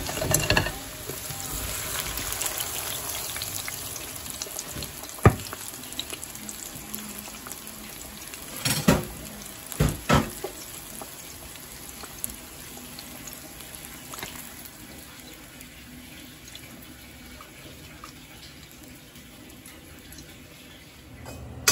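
Hot oil sizzling on freshly deep-fried eggplant pieces as they drain in a wire-mesh strainer, the hiss slowly dying down. A few sharp knocks of metal on metal come through, one about five seconds in and two close together a few seconds later.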